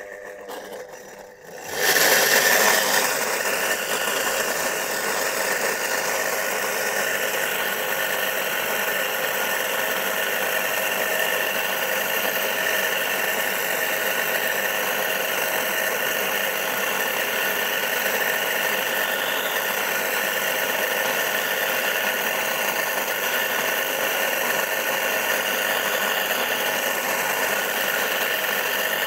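Single-phase electric motor of a walk-behind cultivator switching on about two seconds in, then running steadily with a whine over rough noise as its tillers cut a furrow in the soil. The motor is starting on a makeshift pair of capacitors standing in for its burnt-out start capacitor.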